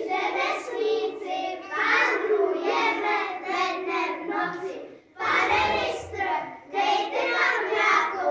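A group of young children singing together, with a short break about five seconds in.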